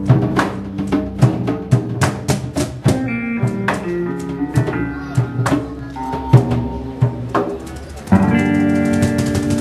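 Instrumental music with a steady drum beat; a louder, fuller held chord comes in near the end.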